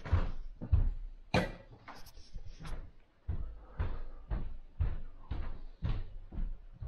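Footsteps of a person walking on a wooden floor, a steady run of thuds at about two steps a second.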